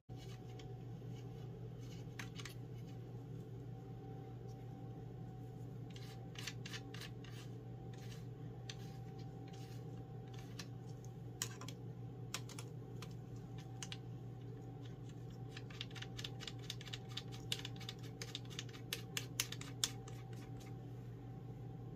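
Small plastic telescope parts being handled and fitted together: scattered clicks and scrapes, then a quick run of clicks near the end as an eyepiece is pushed into place, over a steady low hum.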